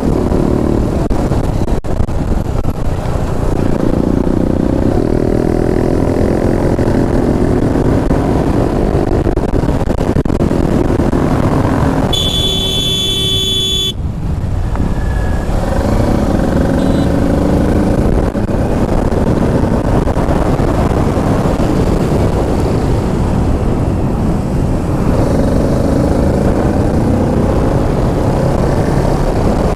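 Kawasaki Ninja 650's parallel-twin engine running under way, its pitch rising and falling with the throttle, over a heavy rush of wind. About twelve seconds in, a horn sounds steadily for about two seconds.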